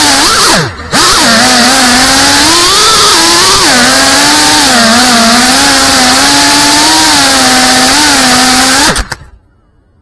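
Motors and propellers of a CineLog35 FPV cinewhoop quadcopter whining, heard loud from its onboard camera, with the pitch rising and falling with throttle. The throttle drops sharply for a moment about a second in. Near the end the motors cut out abruptly as the quad sits landed on the ground.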